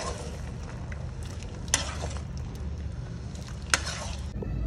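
Metal ladle stirring shiitake mushrooms in a steel pot, with two sharp scrapes against the pot over a steady frying hiss.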